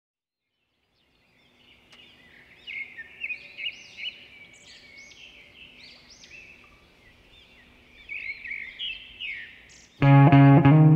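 Small birds chirping and twittering in quick, repeated rising and falling calls. About ten seconds in, guitar music starts abruptly and is much louder than the birds.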